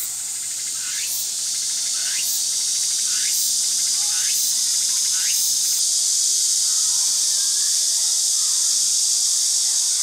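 A chorus of cicadas buzzing steadily and loudly in the trees, growing a little louder over the first couple of seconds. In the first half, short rising sweeps repeat about once a second.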